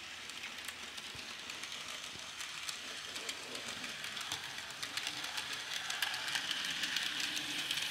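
Bachmann N-scale Durango and Silverton model train running along the track: a rapid patter of small clicks over a light whir, growing louder near the end as the train comes right past.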